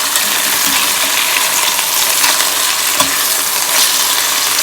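Chicken pieces sizzling in hot oil in a frying pan as the skin browns, a steady hiss, with one light knock about three seconds in.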